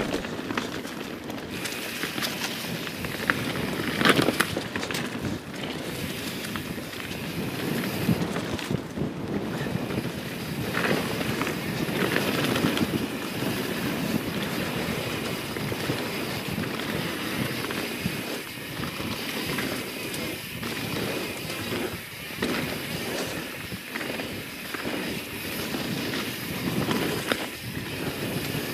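YT Jeffsy 27 mountain bike rolling fast down a dirt flow trail: knobby tyres hissing over packed dirt and leaves, with wind rushing across the camera microphone and scattered sharp clacks as the bike hits small bumps.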